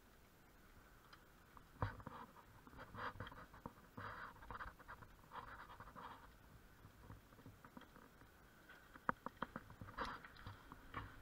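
Faint scratching, scraping and small clicks of a hand tool working inside a motorcycle exhaust silencer's outlet to get the dB killer baffle out, with a quick run of sharp clicks about nine seconds in. The engine is not running.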